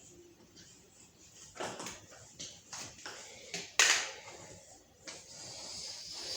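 Handling noises of vacuum attachments being taken off and swapped: a few scattered clicks and knocks, the loudest a sharp knock about four seconds in.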